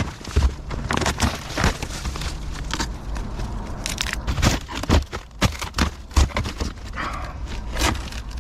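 Irregular clicks, knocks and scrapes of hands and tools working on an old boat engine, with no motor running.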